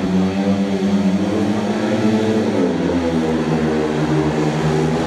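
Speedway bikes' 500 cc single-cylinder methanol engines running and being revved at the start gate, several engine notes overlapping and wavering in pitch, with a dip about two and a half seconds in.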